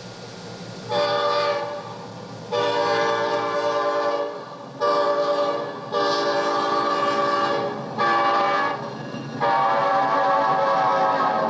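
Sound-effects recording of a train horn played back from cassette on a 1976 Sony TC-520CS stereo cassette player: about a second of tape hiss and hum, then six horn blasts of varying length, the last one long.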